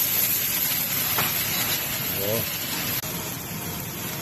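Steady sizzling hiss of meat frying in a pan, easing a little after about three seconds, with voices in the background.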